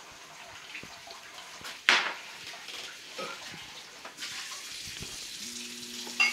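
Glassware and a plastic water pitcher handled on a glass-topped table, with one sharp knock about two seconds in and a splashing hiss of water from about four seconds on. A low steady hum comes in near the end.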